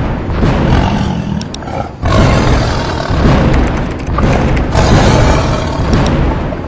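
Intro sound effects: a run of deep booms and roaring rumbles with music under them, swelling loud every second or two.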